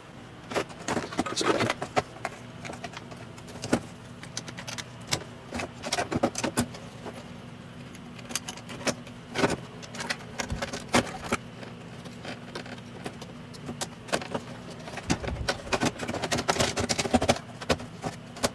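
Irregular clicks, clinks and knocks of metal and plastic parts being handled and fitted together while an oscilloscope is worked on, over a faint steady low hum.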